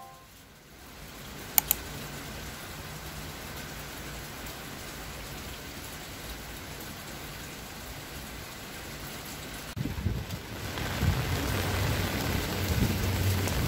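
Heavy rain falling, a steady hiss of drops on hard paving. A single sharp click comes about one and a half seconds in, and about ten seconds in the rain gets louder with a deeper rumble underneath.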